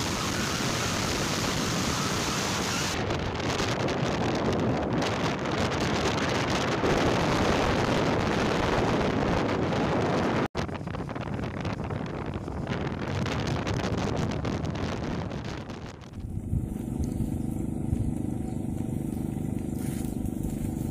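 Motorcycle engine and road noise with wind rushing over the microphone, heard from the rider's seat while riding. It breaks off briefly about halfway through, and about five seconds before the end the rush gives way to a quieter, steady low hum.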